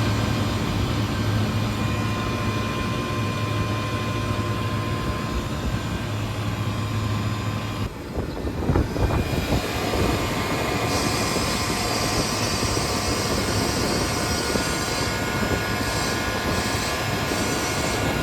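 Rooftop R-404A walk-in cooler condensing unit running, a steady mechanical hum from the compressor and condenser fan. About 8 seconds in the low hum drops away, leaving a rushing noise, with a brighter hiss for a few seconds in the middle.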